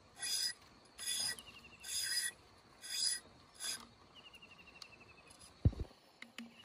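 Five short rasping strokes, roughly a second apart, as thin bamboo strips are drawn and rubbed through a bamboo weave, then a single dull low thump near the end.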